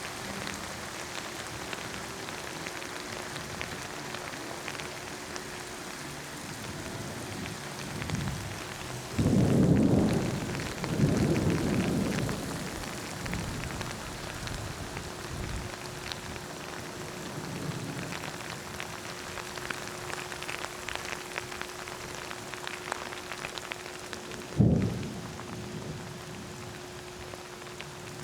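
Steady rain falling, with two loud low rolls of thunder about nine and eleven seconds in and a sharp, loud thunderclap about twenty-four seconds in. A faint steady hum runs underneath.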